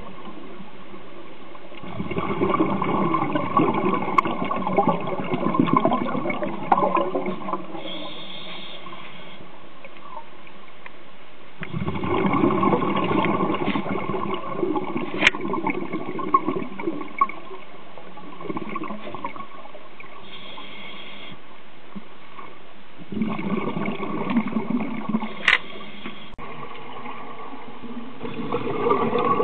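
Scuba diver's regulator exhaust heard underwater: long bubbling gurgles of exhaled air, several seconds each, three of them with a fourth starting near the end, and a steady rush of water noise between.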